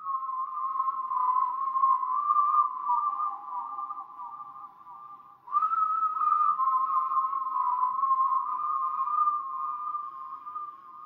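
A slow whistled melody in two close parts moving together. One phrase sinks lower and fades about five seconds in, and the next phrase begins a moment later.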